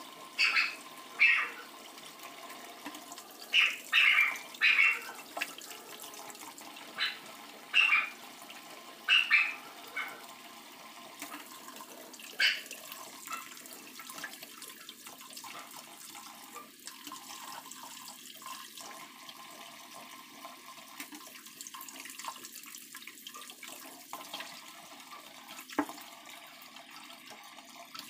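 Kitchen tap running steadily into a stainless steel sink, the stream splashing over hands being rinsed. A string of short, loud, sharp sounds comes in the first dozen seconds or so.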